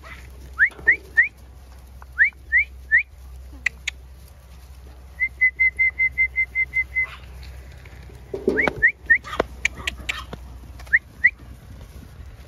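A shepherd's mouth whistle calling the sheep along: sharp rising whistles in quick groups of three, then a rapid run of about ten short pips, then more rising whistles near the end.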